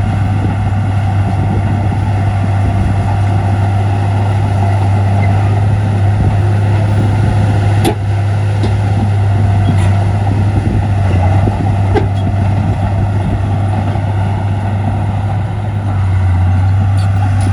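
Heavy diesel earthmoving machinery running steadily with a deep, constant engine hum, most likely a Komatsu bulldozer working. A couple of sharp metallic clanks come about eight and twelve seconds in.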